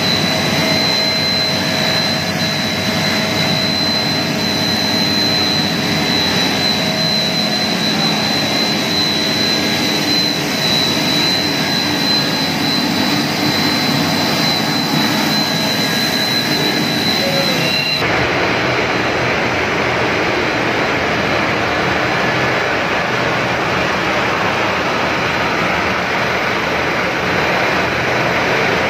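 Twin-screw extruder corn puff production line running: a loud, continuous machine noise with a steady high whine. About two thirds of the way through, the sound changes abruptly to an even rushing machine noise without the whine.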